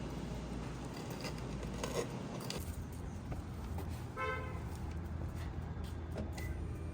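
A car horn toots once, briefly, about four seconds in, over a steady low traffic rumble.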